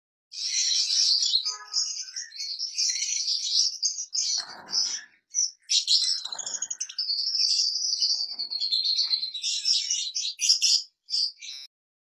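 Cockatiels chirping and calling in a breeding cage: a dense, rapid run of high chirps that goes on almost without a break, with two brief lower sounds about four and six seconds in.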